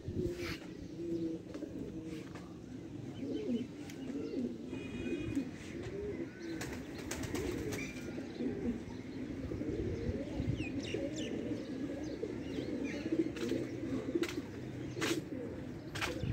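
Domestic pigeons cooing continuously, several low, wavering coos overlapping, with a few sharp clicks scattered through.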